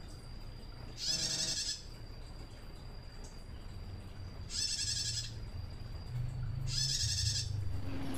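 Female prenjak tamu (a prinia) giving three short, rapid trilled calls, each about half a second long and a few seconds apart. This is the 'ngelcir' call of a raw, newly kept female just beginning to call, calling for a male.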